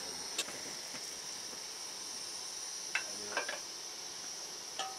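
Insects chirring in a steady high-pitched drone, with a few short faint clicks, two of them close together about three seconds in.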